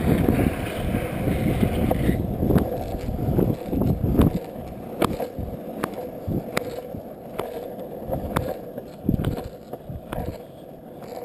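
Longboard wheels rolling fast down an asphalt path: a rough, steady rumble with scattered sharp ticks, easing off toward the end.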